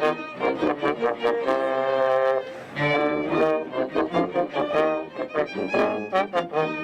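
Instrumental music with brass, playing quick short notes, with a chord held for about a second near the middle.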